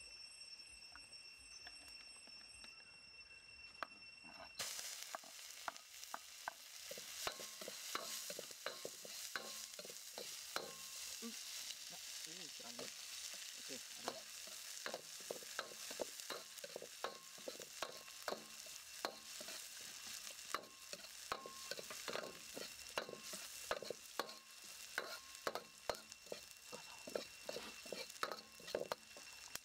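Sliced lemongrass and chilies sizzling in hot oil in a steel wok, the sizzle starting suddenly about five seconds in. Through the sizzle, a metal wok ladle clinks and scrapes against the wok two or three times a second as the ingredients are stir-fried.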